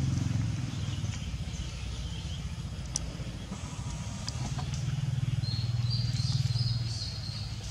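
Low engine rumble from a motor vehicle that fades, then swells again about four and a half seconds in before dropping away near the end, with short bird chirps over it.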